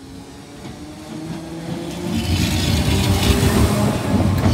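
Merseyrail Class 507 electric multiple unit accelerating toward the camera: a faint motor whine rising in pitch, growing from about two seconds in to a loud rumble and hiss of wheels and bogies as the train passes close by.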